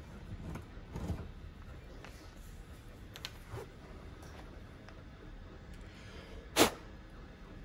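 Quiet handling of a restored 1920s carpenter's brace as it is turned and lifted out of a freshly drilled hole, with a few light clicks and one sharp knock near the end.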